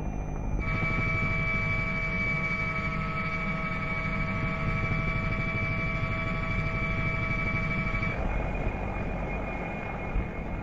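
Helicopter in flight: a steady turbine whine of several high tones over a low, rapidly pulsing rotor rumble. The whine shifts in pitch about eight seconds in.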